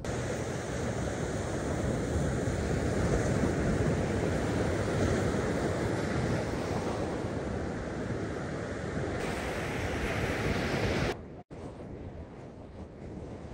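Ocean surf breaking and washing up a sandy beach, with wind buffeting the microphone. A little after eleven seconds it drops suddenly to a quieter wash of surf and wind.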